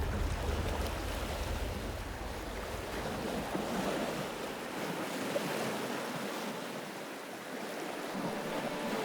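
Sea waves washing on a shore, with wind: a deep rumble dies away over the first three seconds, leaving a steady hiss of surf.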